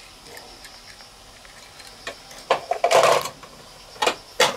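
Plastic clatter as a die-cast minicar is loaded through the roof hatch of a plastic toy car-carrier truck, about two and a half seconds in. Then two sharp plastic clicks near the end as the hatch is pressed shut.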